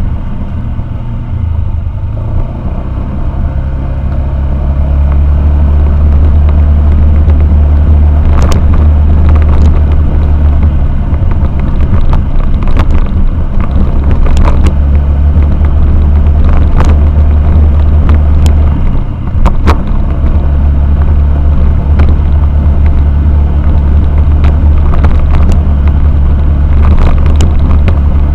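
A motorcycle on the move: a steady, loud low rumble of engine and wind that builds over the first few seconds and eases briefly a little before twenty seconds, with scattered knocks.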